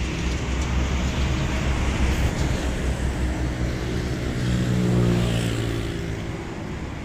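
A motor engine running, with a low rumble that swells to its loudest about five seconds in, then fades.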